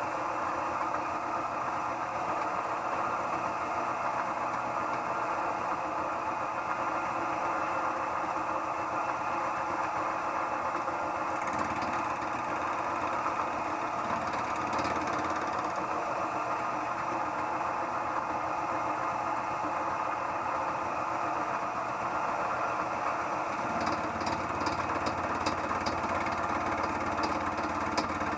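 Harbor Freight mill-drill-lathe combination machine running its milling spindle with a steady geared hum. From about 24 seconds in, a fast ticking joins it as the fly cutter starts taking cuts in the work.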